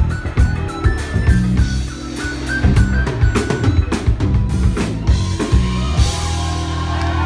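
Live band music: a drum-heavy passage with many sharp snare and bass drum hits over a bass line, then the band holds a sustained chord about six seconds in.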